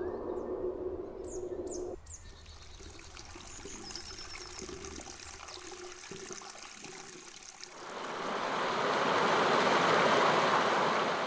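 Stream water rushing over rocks, fading in about eight seconds in and holding as a steady rush. Before it, faint bird chirps over a low steady hum that stops about two seconds in.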